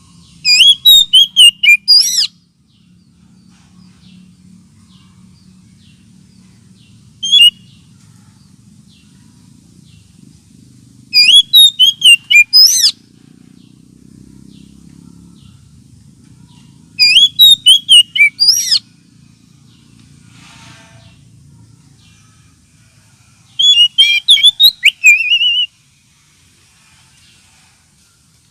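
Oriental magpie-robin (kacer) song played as a lure: loud two-second phrases of rapid, sliding whistled notes, four of them about six seconds apart, with a single short call between the first two. A faint low hum runs underneath.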